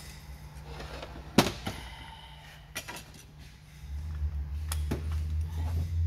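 Metal knocks as a bare aluminium automatic transmission case and its parts are handled on a workbench: one sharp clank about a second and a half in, then a few lighter knocks. A steady low hum starts about two-thirds of the way through.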